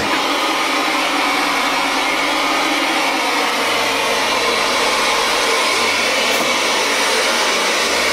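Loud, steady hiss of static from an old CRT television showing snow with no signal.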